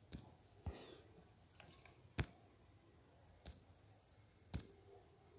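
A series of about six sharp taps on a tablet's touchscreen at irregular spacing, the loudest a little over two seconds in: the screen being tapped to switch to the eraser and remove a stray mark.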